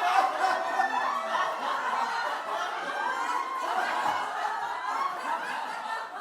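A group of people laughing together, several voices overlapping in chuckles and snickers.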